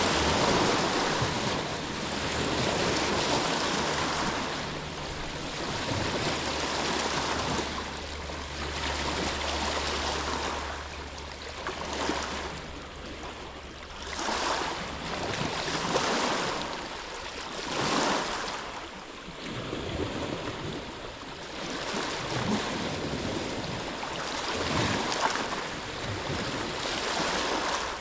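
Sea waves washing in and breaking, a steady rushing that swells and falls back every couple of seconds. A faint low steady hum runs under it through about the first half and then fades out.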